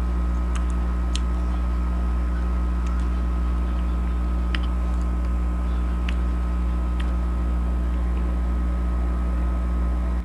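Air conditioner running with a steady low hum and a few faint clicks over it.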